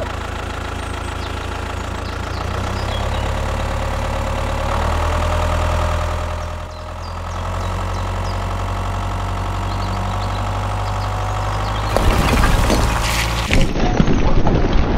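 Tractor engine idling steadily with a low, even running note. It dips briefly about halfway, and from about twelve seconds in the sound turns rougher and louder.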